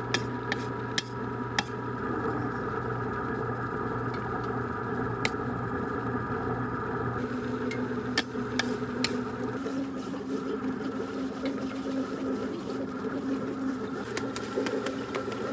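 Electric mochi maker running, its motor humming steadily as the paddle spins and kneads steamed glutinous rice into mochi, with scattered light clicks. The hum changes pitch partway through.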